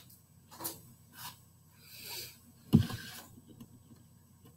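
A few soft rustles and a short hiss, then one sudden loud thump a little after halfway: handling noise from someone moving about at a computer desk.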